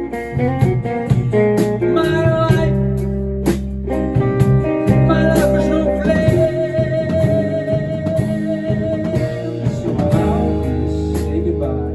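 Live rock band playing an instrumental passage of a song: guitars over bass and drums, with a long wavering lead note in the middle.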